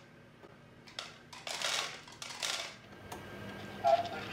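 Cat crunching dry kibble from an automatic feeder's tray, in a few short bursts of crunching and clicks starting about a second in. A brief loud pitched sound comes near the end.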